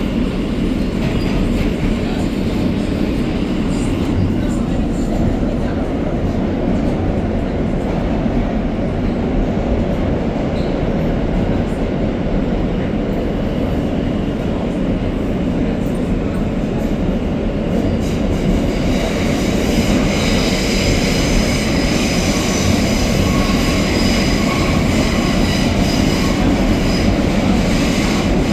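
Interior of an R160A subway car running through the tunnel: a steady, loud rumble of wheels on track. About two-thirds of the way through, a high squeal of several pitches joins it and holds to the end.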